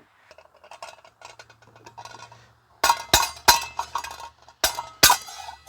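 Metal parts of a 1990s Eureka Whirlwind vacuum's fan assembly being worked loose: faint rattling and ticking, then about five sharp clinking knocks in the second half.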